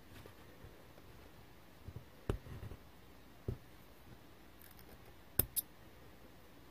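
Quiet cross-stitch handling: a couple of soft knocks as thread and fabric are handled, then near the end two sharp snips close together from small embroidery scissors trimming the floss.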